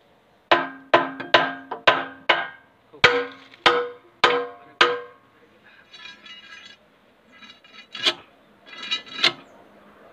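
Hammer blows on the steel bucket pin and linkage of a JCB backhoe, each with a metallic ring, as the pin is driven during a bucket change. About ten strikes come in quick succession, then a lighter clatter, then two more blows near the end.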